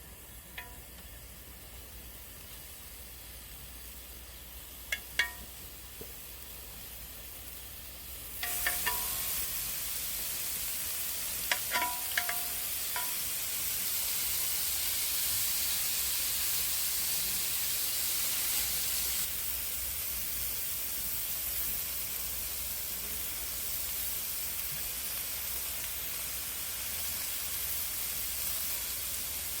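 Food sizzling in a hot pan, starting suddenly about eight seconds in and running steadily after, with a few metal clinks of a utensil against the pan before and just after it starts.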